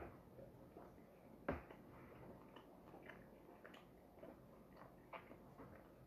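Faint chewing of a piece of beef jerky: a few irregular soft mouth clicks, the clearest about a second and a half in.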